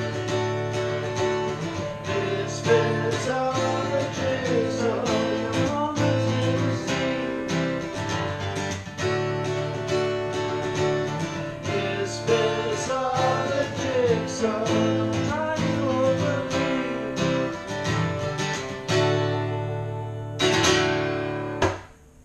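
Two acoustic guitars strummed together with singing over them, a song coming to its end: the final strummed chord rings out and is cut off sharply near the end.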